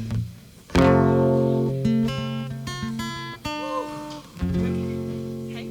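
Guitar played alone: a strummed chord about a second in that rings and slowly fades, a few single picked notes, then another strummed chord near the end.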